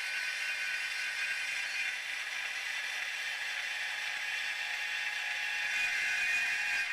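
Power tool cutting into steel tubing, a steady high-pitched metal-cutting whine that swells a little near the end.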